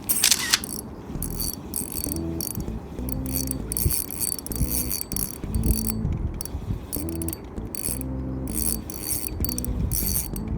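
Fishing reel being cranked to retrieve a lure, its gears whirring in short repeated bursts several times a second.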